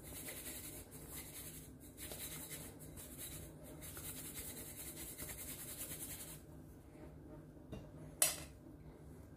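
Yam croquettes swirled in a dry crumb coating inside a stainless-steel bowl: a steady hissing rustle that stops after about six seconds. A single sharp clink comes near the end.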